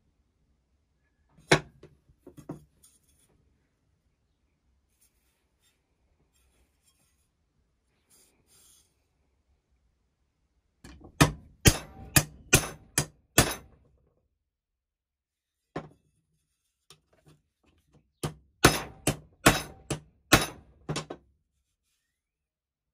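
Hammer strikes on a thin steel plate resting on a steel bar: sharp metal-on-metal blows, a couple of single taps at first, then two runs of about half a dozen quick blows each, with a lone strike between them.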